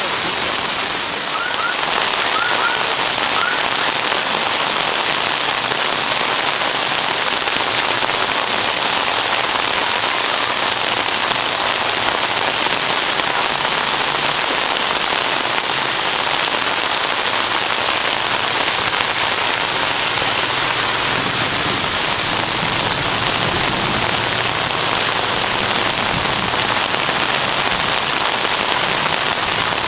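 Heavy monsoon rain pouring steadily onto a flooded street. A few short high chirps come about two seconds in.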